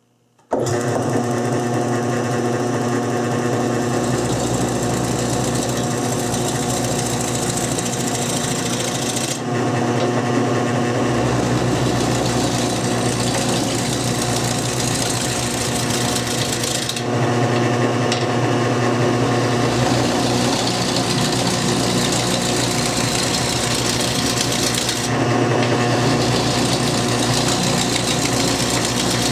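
Homemade wood lathe running, with a steady motor hum under the scraping noise of a scraper cutting across the face of a spinning wooden bowl blank. The sound starts abruptly just after the opening, and the cutting noise eases for a moment a few times as the tool is shifted.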